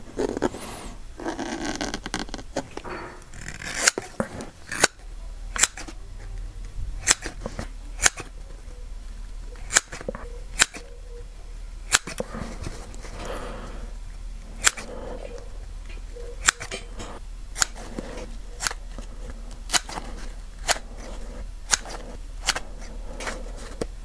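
Scissors snipping a thin white paper template, with sharp clicks about once a second as the blades close. The cutting starts after a few seconds of paper being handled.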